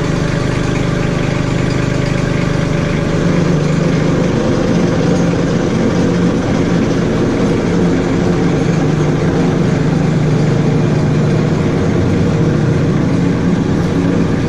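A machine's engine idling steadily with an even low hum, a little louder from about three seconds in.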